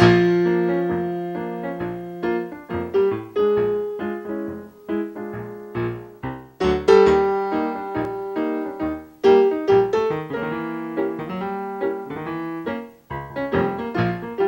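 Piano music: a lively tune of quick struck notes over chords.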